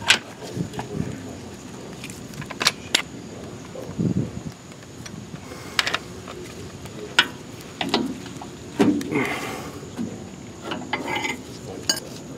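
Scattered light metal clicks and clinks of a screwdriver levering a front shock absorber's lower mounting plate into line with the bolt holes in the lower control arm, with a few dull knocks between.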